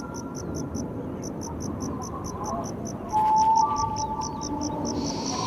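An insect chirping in a steady high-pitched rhythm of about four pulses a second. A louder, rougher noise breaks in briefly a little past halfway, and faint thin whistled tones sit lower down.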